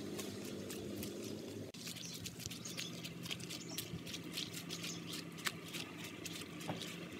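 Footsteps on a dirt path strewn with dry leaves: many irregular light crunches and clicks. A steady low hum runs underneath.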